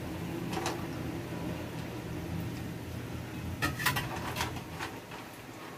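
Cubes of patola (sponge gourd) dropped and pushed by hand into a pan of clams in simmering broth, giving a few clinks and clatters of pieces and shells, once about half a second in and again in a quick cluster near four seconds, over a steady low hum.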